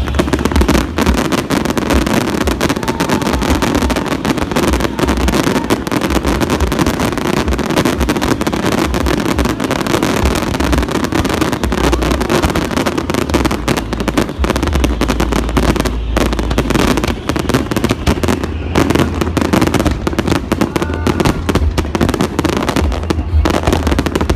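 Aerial display fireworks going off in a dense, near-continuous barrage: rapid crackling and popping bursts over deep booms.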